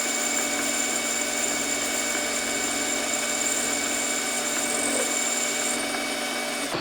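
Metal lathe running under a turning cut, a steady machine noise with several fixed tones, including a high whine. Near the end the high whine stops, then the lathe is switched off and the sound begins to die away.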